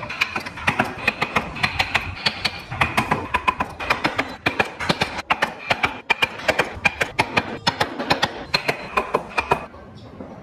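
Steel carving chisel cutting into wood in quick repeated strokes, several sharp clicks a second, stopping abruptly near the end.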